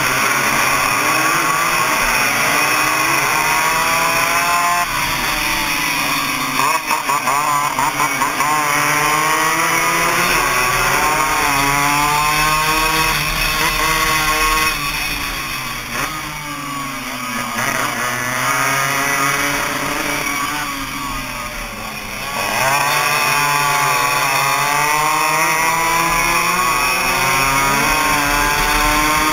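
Suzuki AX100 two-stroke single-cylinder race motorcycles at full throttle, the nearest engine's pitch climbing and dropping again and again through gear changes, with other bikes buzzing close by. It runs quieter and lower for a stretch in the middle, then climbs again.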